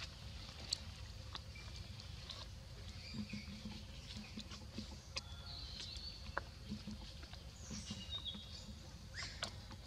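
Quiet outdoor ambience with scattered light clicks and rustles as young macaques handle a paper milk carton on a stone ledge. A few faint high chirps come through in the middle and toward the end.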